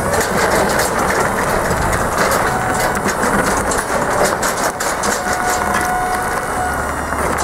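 Battery-electric scissor lift driving across gravel: its hard tyres crunch and crackle over the loose stones throughout, with a faint steady whine from the drive for a second or two near the middle.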